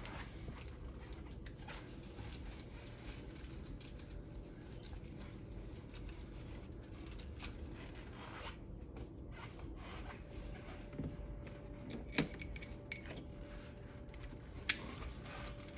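Light metallic clicks and clinks of hand tools and parts being handled while the turbo inlet is fastened down, with three sharper clicks standing out, about 7 s in, about 12 s in and near the end.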